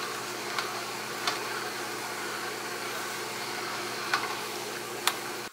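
Steady whir of a small electric motor with a low hum, and a few light clicks.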